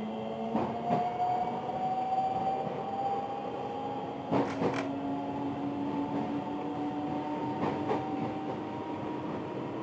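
JR West 223 series 1000-subseries electric multiple unit heard from inside the passenger car: the traction motors whine in several tones that rise slowly in pitch as the train gathers speed. Over this, the wheels clack over rail joints in quick pairs three times, the loudest pair about four and a half seconds in.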